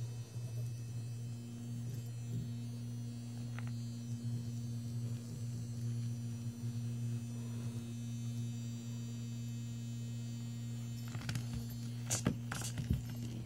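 Steady low electrical hum, with a few sharp taps near the end as a cat swats a light-up plastic toy mouse on a tile floor.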